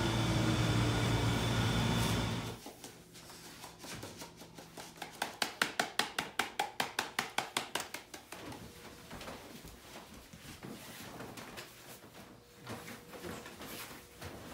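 A steady low machine hum cuts off about two and a half seconds in. Then a quick run of rhythmic taps, about five or six a second, lasts roughly three seconds, followed by faint scattered handling noises.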